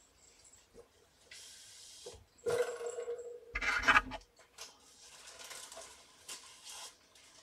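Brown paper rustling and crinkling as kittens play on it, with a louder stretch of rustling and a knock about halfway through.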